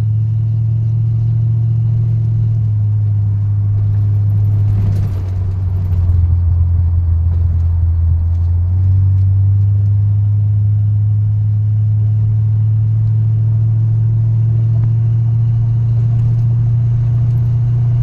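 The V8 of a 1972 Pontiac Grand Prix cruising, heard inside its open-roofed cabin: a steady low engine drone with road noise. About five seconds in the drone dips and drops slightly in pitch, then picks back up near nine seconds.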